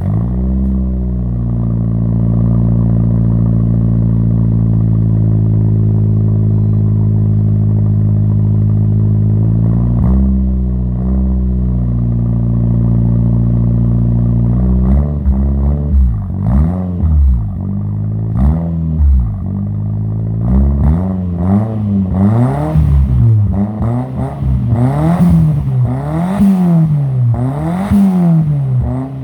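Car exhaust with a 5Zigen Border stainless-steel muffler and its silencer insert fitted: the engine idles steadily, its idle easing down slightly at first, with a couple of light throttle blips about ten seconds in. From about halfway it is revved over and over, each rev rising and falling in about a second and reaching higher toward the end.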